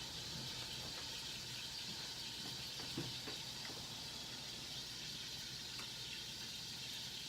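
Chicken pieces browning in a frying pan on the stove, a steady sizzle, with a faint knock about three seconds in.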